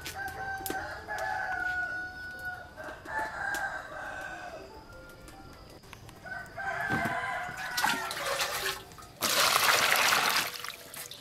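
A rooster crowing in the background. Near the end, water is poured from a jug into a plastic bowl, a loud splashing rush lasting just over a second.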